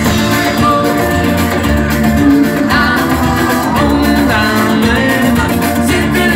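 Live band playing an upbeat Latin-flavoured pop song on a loud PA, with drums, percussion, electric guitar and violin, and a woman singing.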